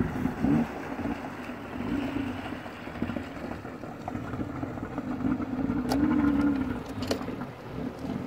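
Jet ski engine running steadily at low pitch, wavering a little as the throttle shifts, over water and wind noise, with two sharp clicks in the second half.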